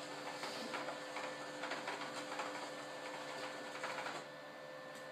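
Dell PowerVault PV-122T DLT tape autoloader running its power-on self-test and scanning for tapes: its internal mechanism whirs and clicks irregularly over a steady hum, easing off about four seconds in.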